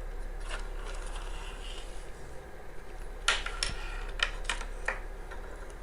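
A few light clicks and knocks from the plastic parts of a barbecue lighter being handled and taken apart, the loudest about three seconds in, over a low steady hum.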